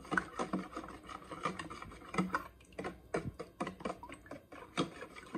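Wire whisk beating thin milk-and-egg pancake batter in a plastic bowl: a quick, irregular run of clicks and splashes, several a second, as the wires strike the bowl.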